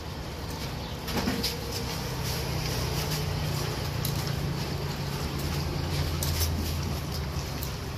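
A vehicle engine running close by, a steady low hum that sets in about a second in, with light clicks of metal tongs and the rustle of a plastic bag as fried food is picked and bagged.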